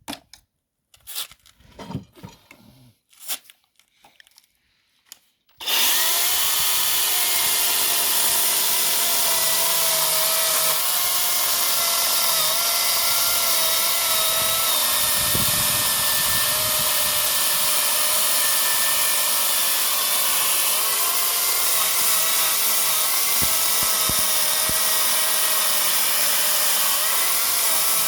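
A 40-volt brushless cordless chainsaw starts about five seconds in, after a few clicks and handling knocks, then runs steadily with a high electric whine. Its pitch dips briefly from time to time, as the chain is loaded in wood.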